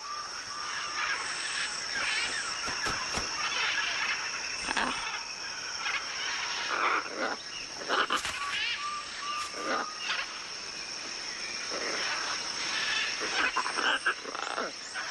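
Scarlet macaws squawking again and again, one loud call every second or two, over a steady high-pitched insect drone of the rainforest.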